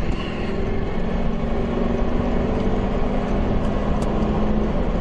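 Steady vehicle noise with a low hum, the engine and road noise of a car heard from the vehicle the footage is shot from.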